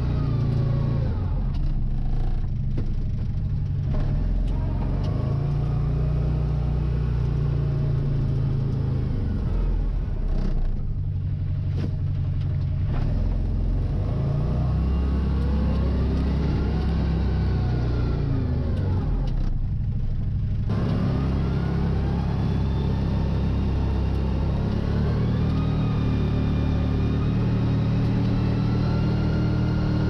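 CFMOTO ZForce 800 side-by-side's engine running under load while plowing snow, its pitch rising and falling over and over as it revs up and eases off. The crusty, compacted snow is making it work hard.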